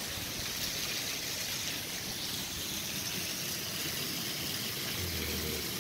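Heavy rain pouring down steadily, an even, unbroken hiss of fast rainfall.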